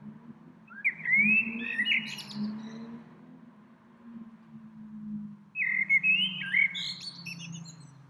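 A songbird singing two short warbled phrases of quick rising and falling whistled notes, each about a second and a half long, with a pause of about three seconds between them. A low steady hum runs underneath.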